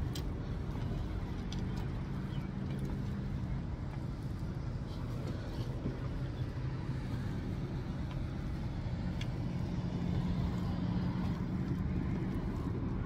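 Steady low hum of a motor vehicle engine idling, with a broad low rumble and a few faint clicks.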